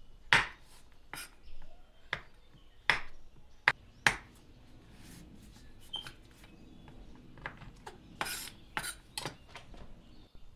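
Knife chopping a bar of chocolate into small pieces on a chopping board: irregular sharp chops, about one a second at first, then sparser, with three quick chops near the end.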